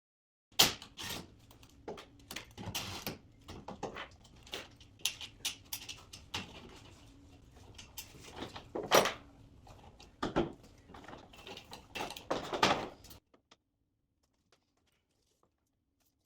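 Irregular clicks, knocks and scrapes of hands and tools working on a garage door opener's rail and its parts, stopping about 13 seconds in.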